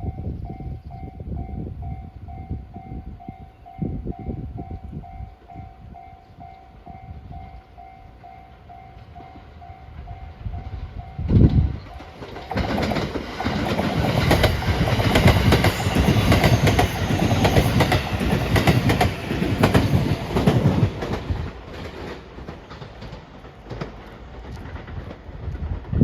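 Japanese level-crossing warning bell ringing steadily at about two strokes a second. About eleven seconds in there is a brief low thump, then a train passes through the crossing, its wheels clattering over the rails loudly enough to bury the bell for several seconds before fading.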